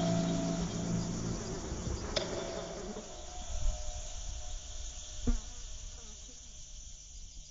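Steady high chirring of insects, with a sharp click about two seconds in and another a little past five seconds. It grows quieter toward the end.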